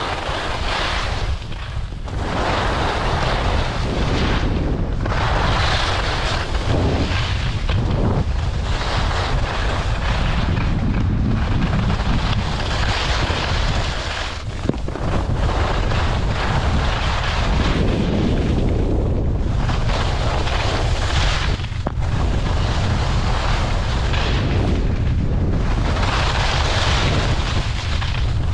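Wind buffeting the microphone of a skier gathering speed downhill, a steady low rumble, with the hiss and scrape of skis on hard, chopped-up piste snow swelling and fading with each turn.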